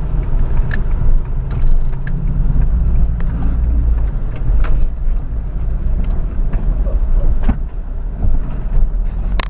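Steady low engine and road rumble of a moving vehicle, with scattered short clicks and knocks.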